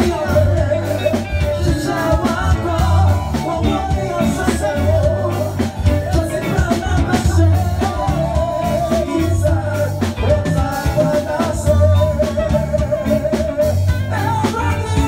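Live gospel band music: a male voice singing the lead into a microphone over electric guitar, keyboard and drum kit.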